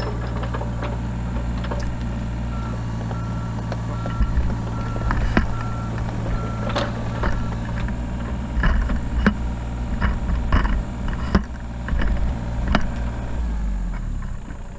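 Mini excavator running hard while digging at tree stumps: a steady engine hum with repeated knocks and cracks from the bucket working on wood and roots. An evenly spaced beep sounds a series of times in the first half, and the engine note drops near the end.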